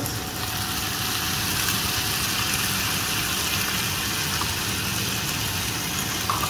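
Chopped tomatoes sizzling steadily in hot oil with fried mutton and onions, the hiss picking up just after they go into the pan, over a steady low hum.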